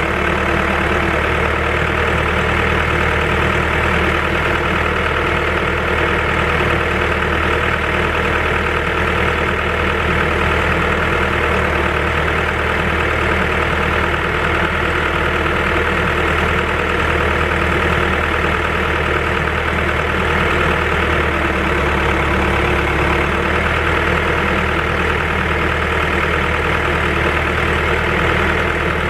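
Diesel engine of a Timberjack 1010B forwarder idling steadily, left running while its air conditioning is checked.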